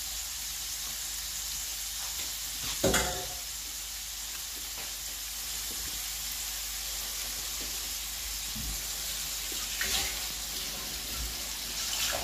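Tuna and broccoli sizzling steadily as they fry in a frying pan. A knock sounds about three seconds in, and a fainter one about ten seconds in.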